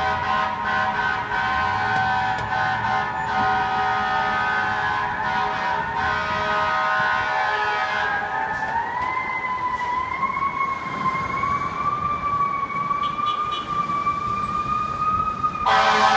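Fire engine air horns blasting a steady multi-note chord for about eight seconds. The siren then takes over, its pitch rising slowly. The air horns come in again near the end.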